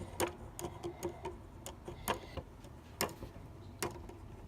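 Plastic LEGO mechanism clicking as a part of the built model is twisted side to side: sharp separate clicks at uneven spacing, about one to three a second.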